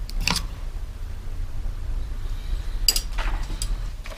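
Steel hand tools clinking and scraping on a Sturmey-Archer three-speed hub's axle and locknut: a sharp scrape just after the start and another about three seconds in, each sliding down in pitch, then a few small clicks, over a low steady hum.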